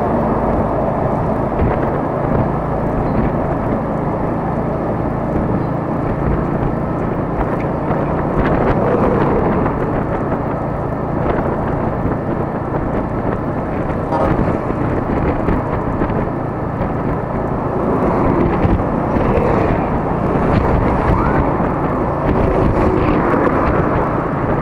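Wind buffeting the microphone on a Honda scooter riding at speed, over the steady drone of its engine and tyres.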